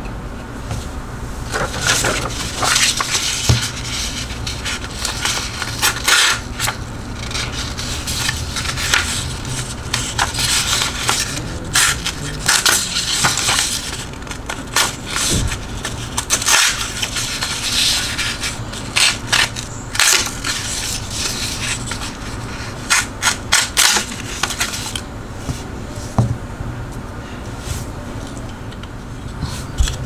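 Knife blade cutting and tearing through a sheet of paper in repeated strokes, each a burst of scraping, crackling paper noise, with short pauses between.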